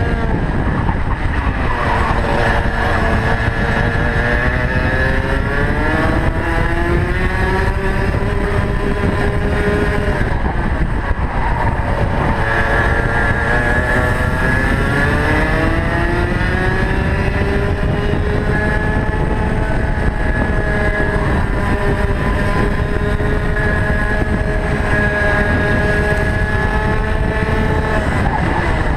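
Rotax Max 125cc two-stroke kart engine heard onboard at racing speed. Its pitch drops as it slows for corners about two seconds in and again near the end, climbs hard as it accelerates out, and holds high through a long stretch in the second half.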